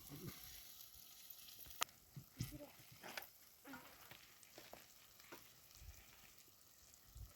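Faint, steady sizzling of food frying, with a few sharp pops and clicks scattered through it.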